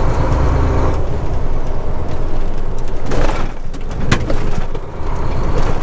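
Semi-truck engine and road noise heard from inside the cab, a steady low rumble. It is broken by a brief rattle about three seconds in and a sharp knock about a second later as the truck rolls over railway tracks.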